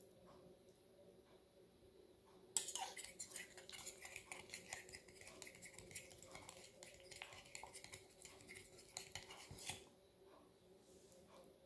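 Metal fork and spoon clinking and scraping against a ceramic plate as spaghetti is twirled: a run of quick irregular clicks that starts suddenly about two and a half seconds in and stops near the end.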